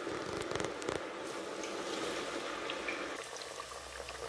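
Potato sticks sizzling and bubbling in hot oil in a deep-frying pot as they go in, a steady frying hiss with a few sharp clicks about half a second to a second in.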